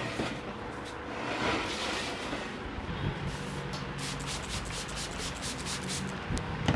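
Massage: a barber's hands rubbing briskly over the customer's skin and clothing, a dry brushing friction. There is a quick run of short strokes partway through, and a sharp knock near the end.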